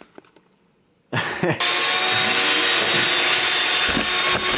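An electric air blower switches on suddenly about a second in and runs with a steady hiss and whine.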